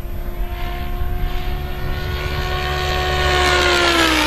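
Henseleit radio-controlled model helicopter making a fast pass. Its rotor-and-motor whine grows louder, then drops in pitch near the end as it goes by. Wind buffets the microphone at the start.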